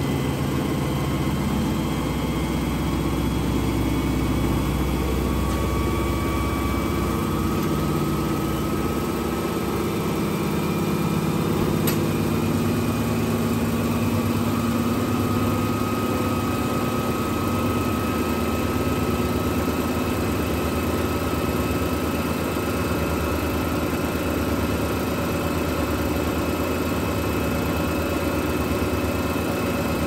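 Vintage Hoovermatic twin-tub washing machine running steadily, its motor and drain pump humming as the pump pushes water out through the drain hose, which splashes into the sudsy wash tub.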